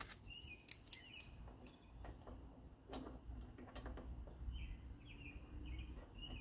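Small birds chirping repeatedly, with a few separate clicks and taps from hand tools being worked on a pulley puller fitted to a mower's blade adapter.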